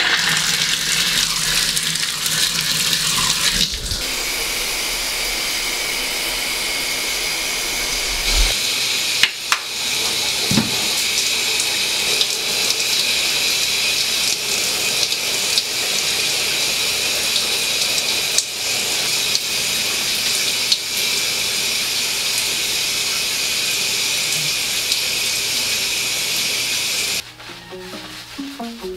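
Shower water running in a steady hiss. It cuts off sharply near the end.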